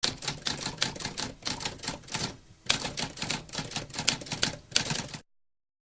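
Typewriter typing, a quick run of key clacks with a short pause about halfway through, stopping abruptly about five seconds in.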